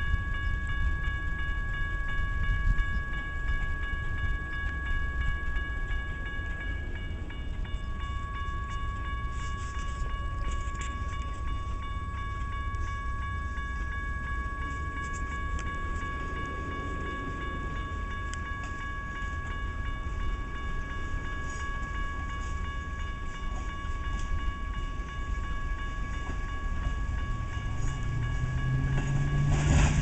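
Grade-crossing warning bell ringing on and on as a passenger train backs slowly toward the crossing, with a low rumble under it. Near the end the train's rumble grows and its wheels clatter onto the crossing.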